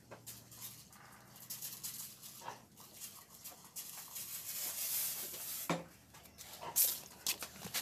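Cattle moving about in a stall, with a breathy rushing noise building through the middle that stops suddenly, and a few sharp knocks.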